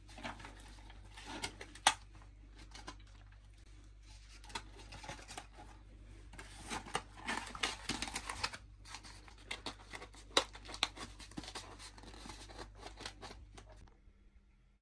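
Shredded lettuce rustling and a paperboard burger box being handled and its lid folded shut by hand, with scattered small clicks and taps. The sharpest tap comes about two seconds in. The handling stops abruptly near the end.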